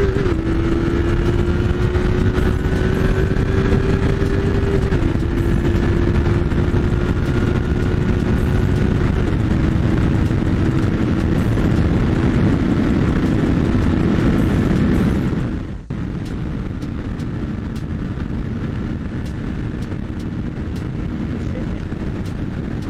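Yamaha MT-03's parallel-twin engine pulling under throttle, its note climbing slowly and dropping at two upshifts. About two-thirds of the way through the throttle closes and the engine note falls away, leaving a quieter steady rush of riding noise.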